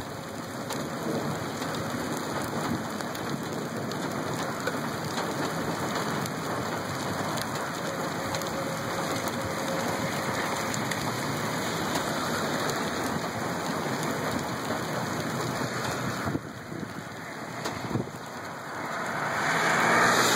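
Rain falling steadily through a thunderstorm. It dips briefly about sixteen seconds in and grows louder near the end.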